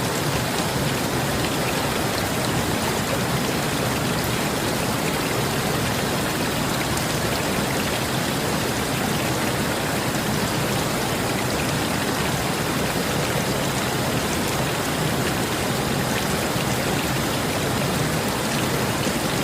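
Steady rain falling and pattering on surfaces, blended with the even rush of a flowing river.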